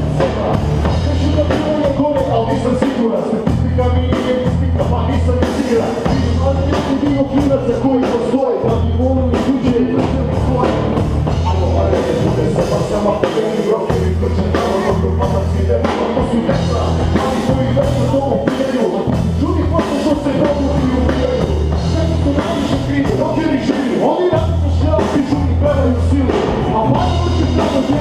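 Live rap-rock band playing loudly: electric bass, drum kit and electric guitar in a steady heavy beat, with rapped vocals over it.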